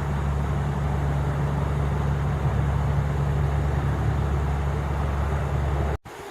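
A car running steadily: an even low hum with a hiss over it. The sound cuts off abruptly near the end.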